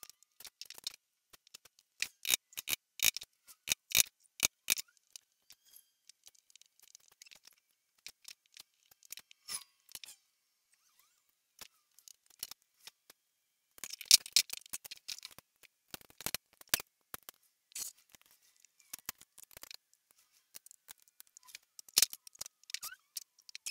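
Hand chisel cutting hinge mortises into a wooden lid: sharp clicks and taps of the edge chopping and paring the wood, in quick clusters a few seconds in, around the middle and near the end, with scattered lighter ticks between.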